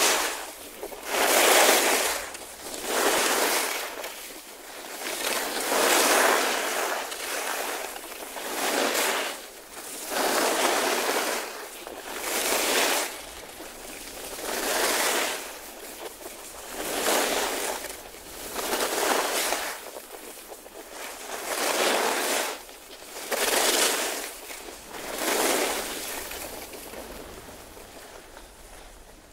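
Skis carving turns downhill on snow: a regular run of hissing swishes, one turn about every one and a half to two seconds. The swishes fade away near the end.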